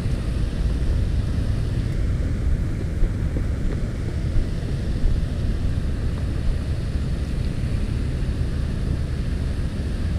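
Steady low rumble of wind buffeting an action camera's microphone, with a few faint soft taps.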